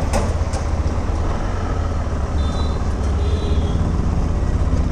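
KTM 390 Adventure's single-cylinder engine running steadily as the motorcycle pulls away and rides out onto the road, heard from the rider's helmet.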